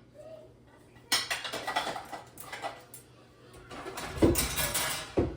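Dishes and cutlery clattering as they are set into a dishwasher's racks, with a louder burst of knocks and thumps near the end.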